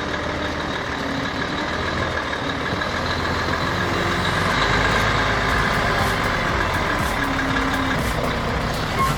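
Volvo FMX 500 truck's diesel engine running steadily under a full load while climbing a muddy trail.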